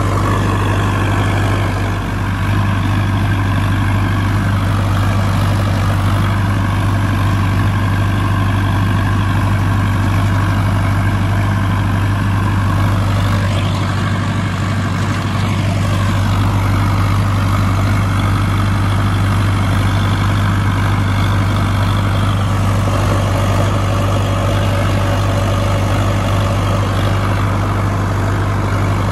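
Sonalika DI 750 DLX tractor's diesel engine running steadily while pulling a rotary tiller through the soil, with a steady low drone.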